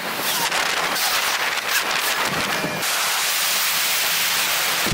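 Rain and wind hissing on the camera's microphone while riding through a rainstorm. Irregular ticks and pops run through the first few seconds, then the hiss steadies.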